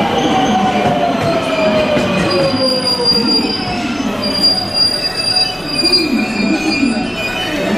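281 series "Hello Kitty HARUKA" limited express pulling into the platform and slowing nearly to a stop, with a whine falling in pitch over the first three seconds as it slows. A high steady wheel squeal sets in about halfway through, over the rumble of the cars.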